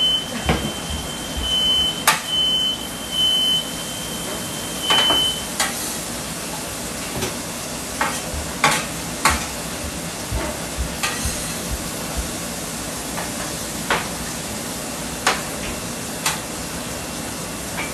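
Vegetables and chicken sizzling on a stainless flat-top griddle over a gas range, with a metal spatula clicking and tapping on the griddle now and then. For the first five seconds or so, a smoke alarm sounds a high steady tone broken by a few short gaps, set off by the smoke from the cooking.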